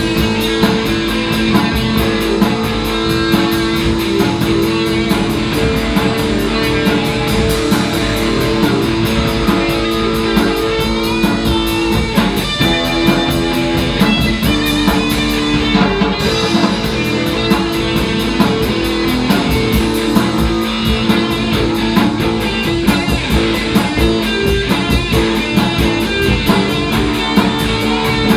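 Rock music with guitar and a large drum kit played hard along to it, a fast steady run of cymbal strokes on top. The cymbals drop out for about a second halfway through.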